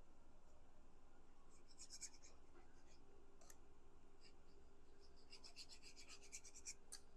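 Faint rubbing and scratching of cardstock being handled and pressed together, in two short runs of quick strokes, about two seconds in and again from about five and a half seconds.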